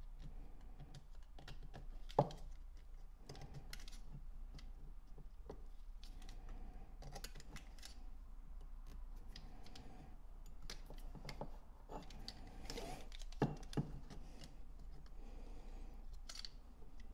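A small knife blade scraping and picking brittle stickers off painted carburettor dash pots: faint scratches and small clicks, with a louder knock about two seconds in and two more about two-thirds of the way through.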